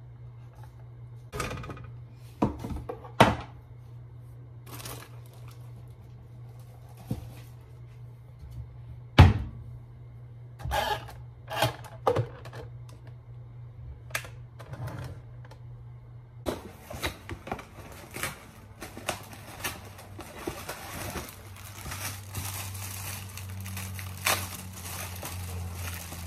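Kitchen handling sounds: scattered sharp clicks and knocks as a plastic drip coffee maker's lid, a metal coffee can and a plastic scoop are handled, over a low steady hum. From about two-thirds of the way in, continuous crinkling and rustling of plastic food packaging.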